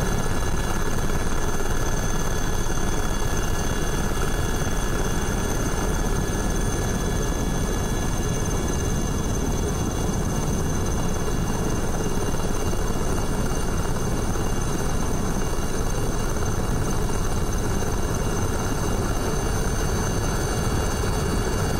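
Helicopter engines and rotors running steadily: a dense, unbroken low rotor noise with several steady high whining tones over it.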